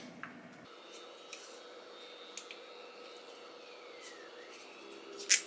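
Handling of a plastic bladeless neck fan: a few faint clicks and rubbing, then one sharp, louder click shortly before the end. The fan itself does not start up.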